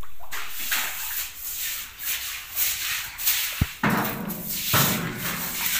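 Straw hand broom swishing across a tiled floor in repeated short strokes, with a single knock a little past halfway.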